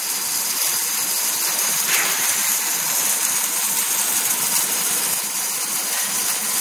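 Two welding arcs of an automatic ring seam welding machine burning steadily on a pipe, giving a continuous crackling hiss as they lay the circumferential seams.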